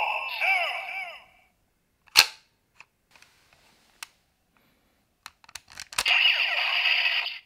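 Electronic sound effects from a DX Kamen Rider Zi-O toy driver's small speaker, with falling chirps, which cut off about a second in. Sharp plastic clicks follow: one loud snap about two seconds in, then a quick run of clicks near six seconds as the watches are set and the driver is worked. The toy's sound effects then start again.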